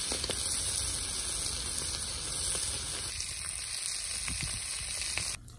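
Small whole fish sizzling on a hot round griddle pan: a steady frying hiss that cuts off suddenly near the end.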